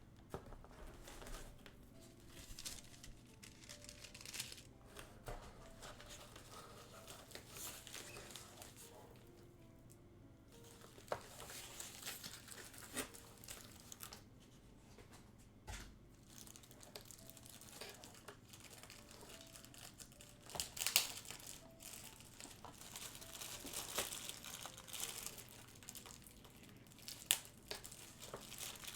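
Packaging being unwrapped by hand: intermittent crinkling and rustling with occasional sharp crackles, busier in the second half.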